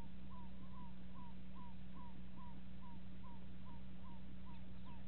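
An animal calling a long, even series of short down-slurred notes, about two and a half a second, over a steady low hum.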